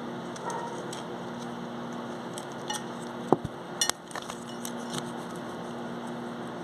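Cutlery clinking against a plate during a meal: a scattering of light clicks and clinks, the loudest about three seconds in, over a steady low hum.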